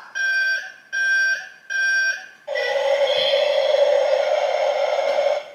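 Battery-powered toy excavator playing its electronic sound effects: three short beeping tones about a second apart, then one longer steady electronic tone for about three seconds that cuts off near the end.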